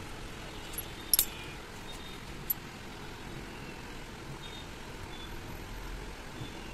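Light metal clinks of small steel valve-train parts, the bucket tappets of a cylinder head, being handled: a sharp clink about a second in and a smaller one about two and a half seconds in, over a steady low background rumble.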